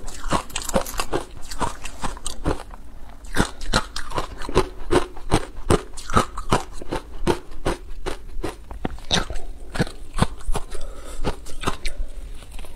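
A person biting and chewing crumbly frozen green ice, close to a clip-on microphone: a dense run of sharp crunches, several a second.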